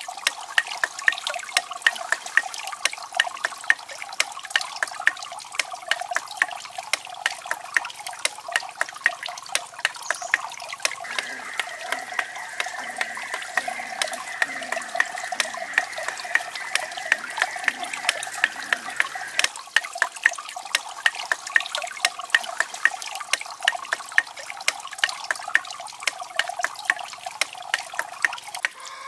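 Water trickling and splashing from the bamboo spouts and water wheel of a miniature garden water feature, with a quick, uneven run of sharp drip ticks, several a second.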